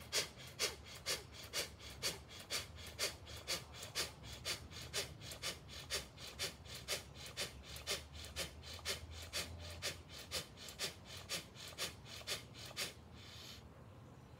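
A man's rapid, forceful bhastrika/kapalabhati pranayama breaths in an even rhythm of about two a second. The run stops about 13 seconds in with one longer breath, ending the set.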